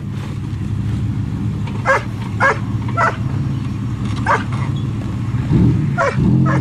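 A dog barks about six times in short bursts over the steady low running of a Dodge Ram pickup truck's engine.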